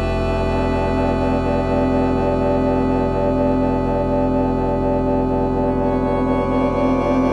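Background music of slow, sustained chords over a steady low drone.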